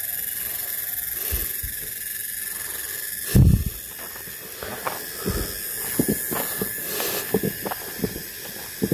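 Steady high-pitched outdoor hiss with one loud thump about three and a half seconds in, followed by a run of short irregular footsteps.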